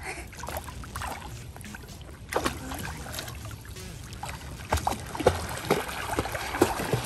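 Pool water splashing and sloshing as small children paddle and kick through it, an irregular patter of splashes that grows louder and busier from about five seconds in.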